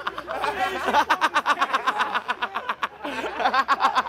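Several people shouting, whooping and laughing during a sprint race, over a fast, even run of clicks or taps.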